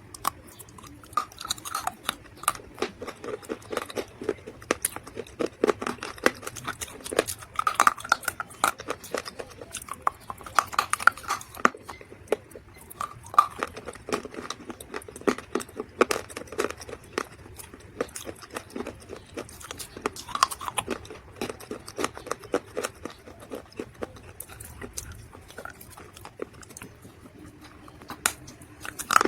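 Dry mud or clay crunching and crumbling close to the microphone, a dense, irregular run of sharp crackles and snaps with brief pauses between bursts.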